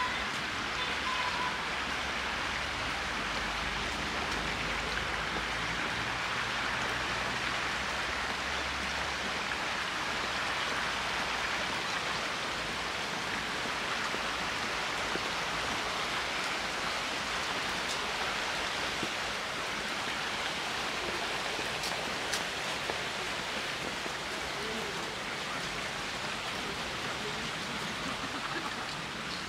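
Steady rush of a shallow river running over rocks and small rapids.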